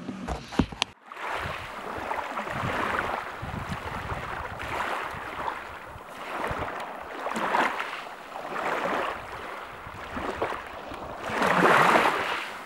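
Small waves washing up onto a beach, the surf swelling and easing every couple of seconds, with a few brief knocks at the very start.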